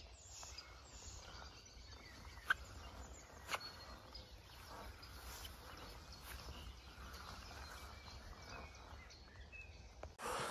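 Faint outdoor countryside ambience: a low steady rumble with a few faint, brief bird calls. Two sharp clicks come about two and a half and three and a half seconds in.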